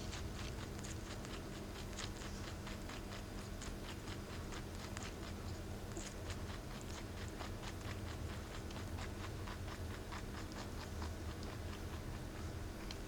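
Mini-Lop rabbit chewing carrot peel: rapid crunching bites in a quick, uneven run of small clicks, like a typewriter.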